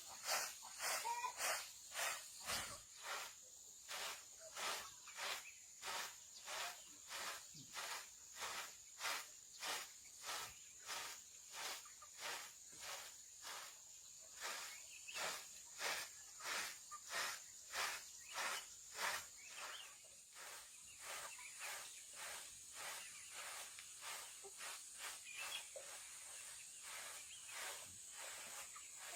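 Rhythmic scraping strokes, about two a second, growing fainter in the last third, over a steady high-pitched buzz of insects.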